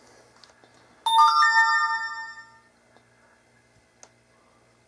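Electronic chime from a tablet's speaker: four quick notes rising in pitch, ringing together and fading out over about a second and a half, like a device notification tone.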